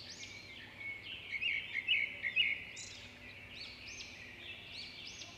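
Birds chirping: a run of repeated high arching calls, with a louder cluster of short chirps between about one and two and a half seconds in.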